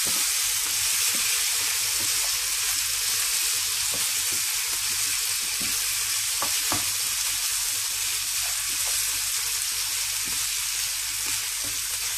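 Chicken pieces in a thick spice masala sizzling steadily in a frying pan over a medium-high flame, while a wooden spatula stirs them, giving a few light scrapes and taps against the pan.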